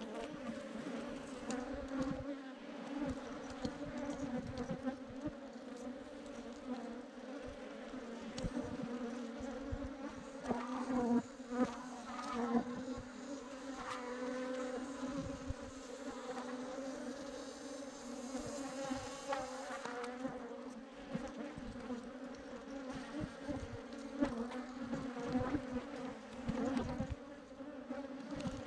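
Steady, dense hum of a swarm of Africanized honey bees, with scattered small knocks from handling.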